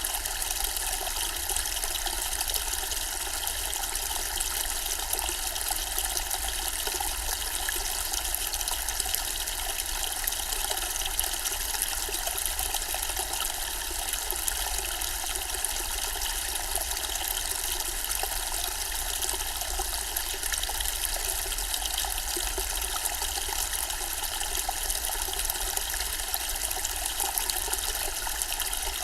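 Zen-style water fountain, water trickling steadily and without change.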